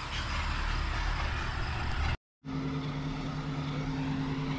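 Wind rushing over the microphone on a moving chairlift, with a brief dropout about two seconds in; after it a steady low hum runs under the wind.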